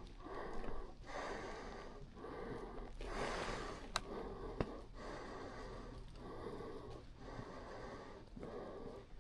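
A man breathing heavily and rhythmically, about one breath a second, catching his breath after the exertion of pushing a motorcycle up a steep hill. A sharp click comes about four seconds in.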